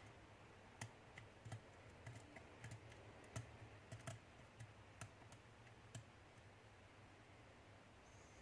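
Faint, irregular clicks and taps of a lock pick working the pins of a challenge lock; they stop about six seconds in.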